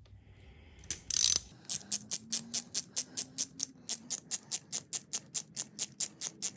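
Hand ratchet clicking at about five clicks a second as it runs an ARP connecting-rod bolt down into an LS engine's rod cap. A short scraping noise comes about a second in.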